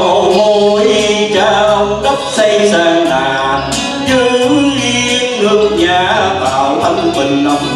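A man singing a Vietnamese song into a microphone, amplified, over musical accompaniment.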